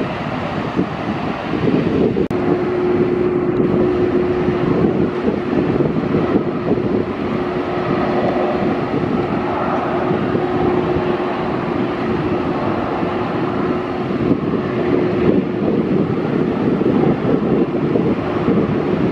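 Airbus A330 airliner's jet engines on landing approach and touchdown: a steady rush of engine noise with a held mid-pitched tone from a couple of seconds in until about three-quarters through, mixed with wind on the microphone.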